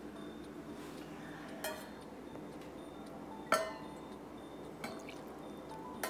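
Four light clinks of kitchen utensils against dishes, spaced a second or more apart, the loudest one midway, over a quiet steady background.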